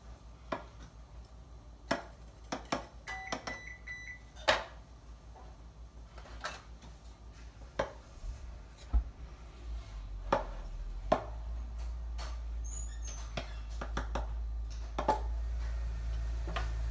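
Scattered light clicks and taps of a small knife against a metal pie pan as the overhanging pie crust edges are trimmed off. A short high tone sounds about three seconds in, and a low steady hum sets in about ten seconds in.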